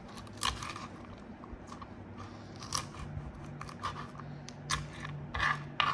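Crisp cooked bacon being cut, a series of short crunching cuts spaced irregularly, coming more often near the end.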